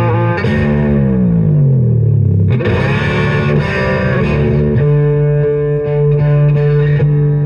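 Distorted electric guitar fitted with a Guyker tremolo bridge: a held note dives smoothly down in pitch over about two seconds, as from pressing the tremolo arm. A fresh attack follows, and then a new low note or chord rings steadily under light repeated picking.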